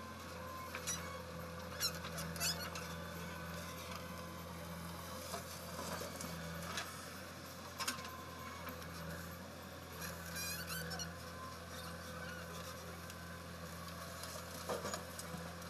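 Diesel engine of a JCB backhoe loader running steadily as it digs soil, with scattered short clicks and knocks.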